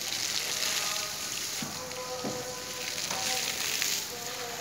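A steady hiss with faint crackles, and faint tones or distant voices underneath.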